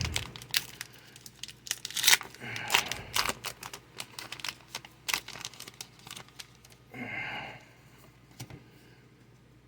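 Pokémon booster pack's foil wrapper being torn open and crinkled by hand, a run of sharp crackles over several seconds that then dies away.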